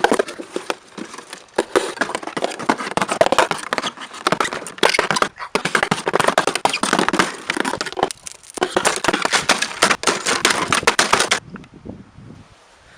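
Packaging being handled and torn open: a dense crinkling, crackling and tearing in long stretches with short pauses, dying down near the end.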